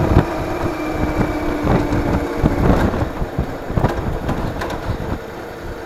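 Vehicle engine running on the road, its pitch easing slightly lower, with wind buffeting on the action-camera microphone; the sound gets quieter about five seconds in.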